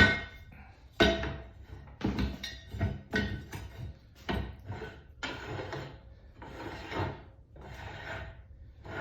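A piece of pipe being fitted into a welding positioner's chuck jaws. Several sharp knocks come in the first few seconds, then three longer scraping, rubbing sounds.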